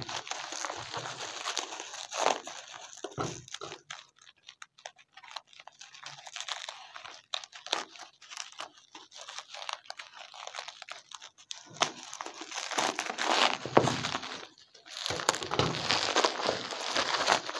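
Plastic bubble wrap being pulled and torn open by hand, crinkling and crackling, growing louder and busier near the end.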